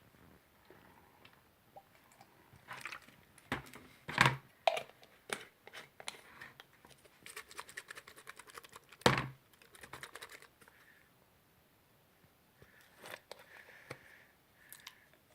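Plastic glue bottles being handled and squeezed: irregular small clicks and taps of bottles and caps, with a few sharper knocks, the loudest about nine seconds in.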